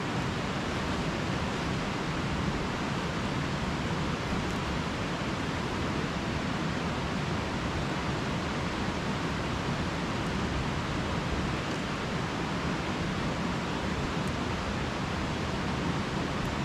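River water rushing steadily, an even, unbroken hiss with no distinct events.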